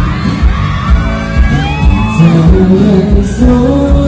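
Live pop song played loud through a stage PA: a male singer singing into a handheld microphone over a band with a steady drum beat, with a few high cheers from the audience about halfway through.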